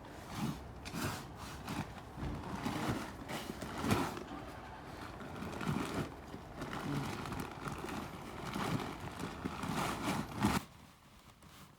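Irregular knocks, clicks and scrapes of construction work, with faint voices in the background; the noise stops abruptly about ten and a half seconds in.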